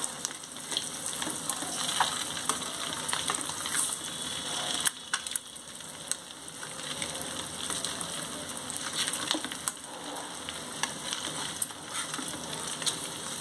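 Halved boiled eggs frying in hot oil in a steel pan, sizzling steadily. Scattered clinks and scrapes come from a metal turner against the pan as the egg halves are flipped to fry the other side.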